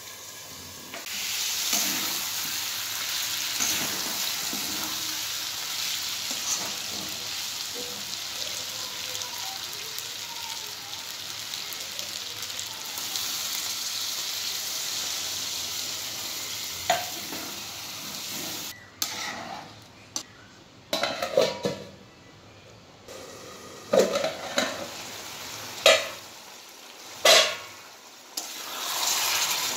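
Chicken curry sizzling in a kadai, a steady hiss for the first two-thirds. Then the hiss drops away and a metal slotted spatula stirs and scrapes the pan, with several sharp clinks against its side, before the sizzle rises again near the end.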